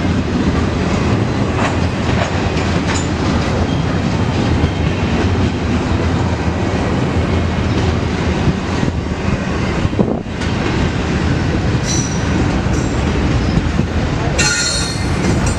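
Cars of a long intermodal freight train rolling past, a steady loud rumble with scattered wheel clicks over the rail joints. Near the end the wheels squeal in several high tones.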